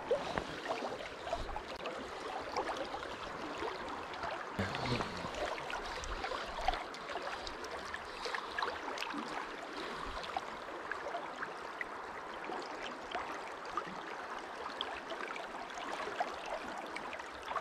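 Shallow river water flowing over a rocky bed: a steady babble with many small gurgles and splashes.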